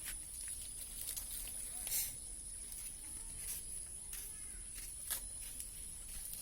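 Steady high-pitched insect drone, with a few sharp clicks or knocks; the loudest comes about two seconds in.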